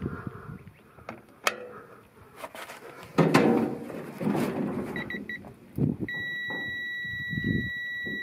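Digital torque adapter beeping as a truck lug nut is pulled tight: about five seconds in there are three quick short beeps, then a long steady beep holds from about six seconds on, signalling that the set torque has been reached. Before the beeps come scuffing and thumps as the wrench is heaved on.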